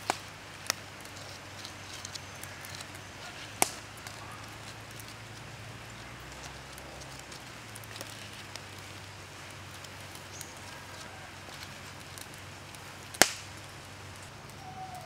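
Wood embers of a campfire crackling under a steady faint background, with a few sharp pops, the loudest near the end.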